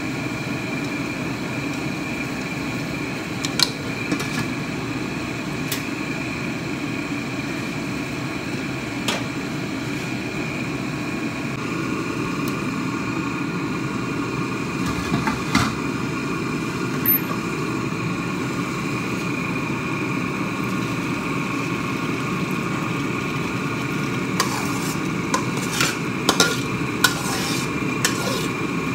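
Scattered clinks of chopsticks and metal cookware over a steady kitchen hum with a faint whine in it. Near the end comes a quick run of metal knocks as a wok is tipped against the rim of a stainless steel pot to pour soup into it.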